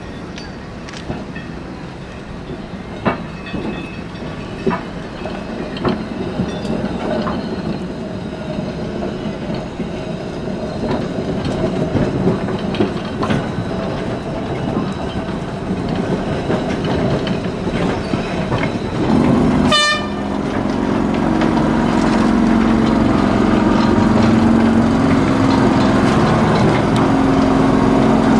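Blackpool trams moving slowly over depot track and points, with steel wheels clicking over rail joints and rolling noise building up. About two-thirds of the way in there is a brief sharp ringing sound, and then a tram close by gives off a steady mechanical hum.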